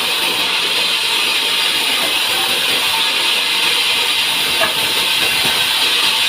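Sawmill saw cutting through a resinous pine log, a steady loud hissing whir with no break.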